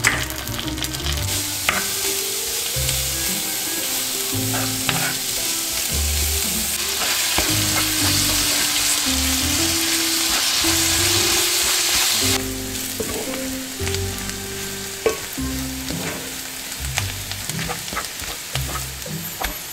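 Sausage, green onion, garlic and kimchi sizzling as they are stir-fried in a cast-iron skillet and stirred with a wooden spatula, with a few sharp ticks of the spatula against the pan. The sizzle swells in the middle and drops off suddenly about two-thirds of the way through.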